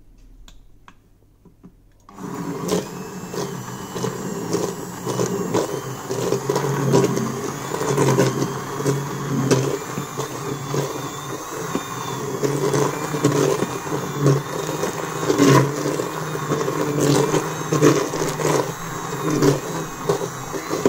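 Hand blender switched on about two seconds in, running continuously as it purées cooked soup in a stainless steel pot. Its level rises and falls as it works through the mixture.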